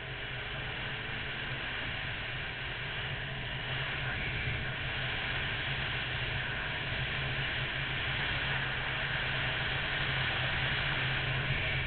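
Honda VFR800 motorcycle's V4 engine running at a steady cruise under a heavy rush of wind over the microphone, growing slowly louder through the first half.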